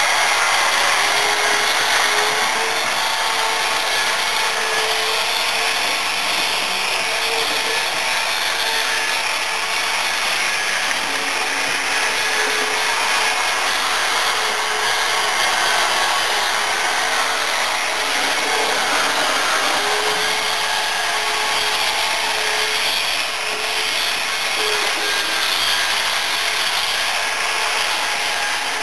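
Two HO-scale Tenshodo EF15 electric locomotive models running double-headed: the motors and gearing give a steady whirring with a faint wavering hum, over the rolling of metal wheels on the rails.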